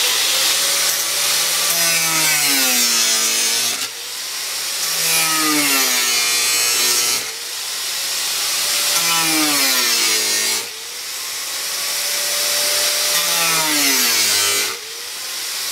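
Small angle grinder with a masonry disc cutting slits into 110 mm PVC pipe. Four cuts: each time the motor's pitch sags as the disc bites into the plastic, then picks up again between cuts.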